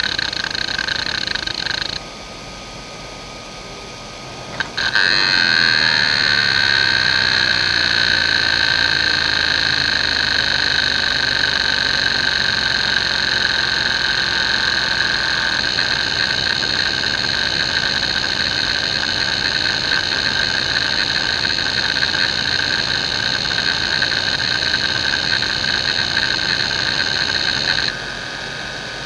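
JVC JDE2042M10-1 40MB 2.5-inch hard drive's head actuator seeking rapidly under a seek benchmark, a dense, steady, high-pitched chatter. It goes quieter about two seconds in, comes back with a click and a short rising tone about five seconds in, and drops quieter again near the end.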